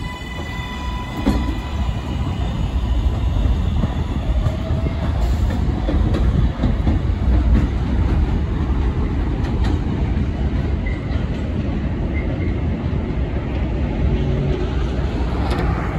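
New York City subway L train pulling out of an elevated station. The electric propulsion whine holds a steady pitch for the first couple of seconds, then gives way to the loud rumble and clatter of the cars on the elevated track as the train accelerates away.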